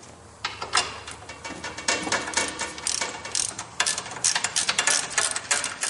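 Hand ratchet wrench clicking in quick runs as bolts are turned loose, metal on metal.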